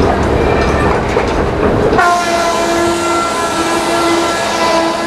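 Frick sawmill belt-driven by a Frick steam traction engine: dense rumbling, clattering machinery, then about two seconds in an abrupt change to a steady ringing sound of several held pitches.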